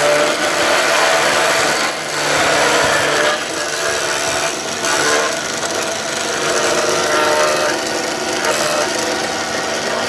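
Vertical milling machine's spindle cutter routing a scoop into the back of a Kashmiri willow cricket bat blade: a steady motor whine with the rough cutting of wood, dipping briefly a few times as the blade is fed along.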